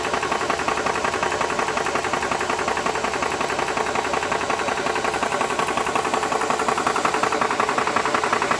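Nomad II portable 4500 PSI high-pressure air compressor running steadily with a fast, even pulsing chatter, pumping a PCP air rifle up toward 3000 PSI.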